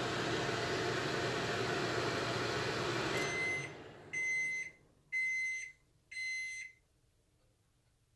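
A kitchen appliance runs with a steady hum that stops about three seconds in. Four high beeps follow, about a second apart, signalling the end of its cycle.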